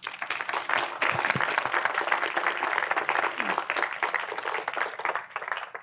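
Audience applauding: the clapping swells within the first second, holds steady, and dies away near the end.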